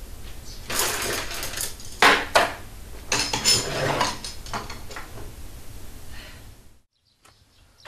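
Porcelain cup and lid clinking and knocking against each other and on a wooden table as they are handled: a run of sharp clinks, busiest in the first four seconds, thinning out and stopping abruptly near the end.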